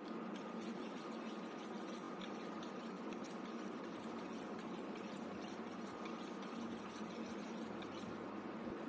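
A butcher's knife being honed on a sharpening steel: many quick metal-on-metal scraping strokes, several a second, over a steady background hum.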